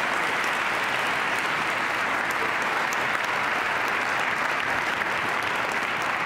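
Audience applauding steadily: dense, even hand-clapping that holds at one level throughout.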